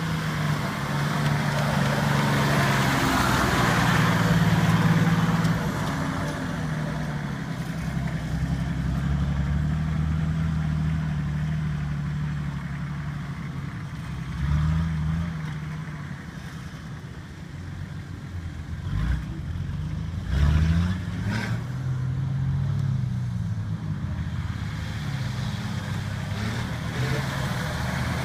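Off-road vehicle engine running and revving up and down, its pitch rising and falling, with a few sharp knocks about two-thirds of the way through.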